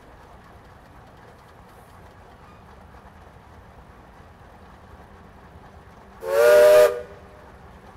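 A steam whistle gives one short, loud blast of under a second about six seconds in, a chord of several pitches over a hiss of escaping steam, above a faint steady low hum.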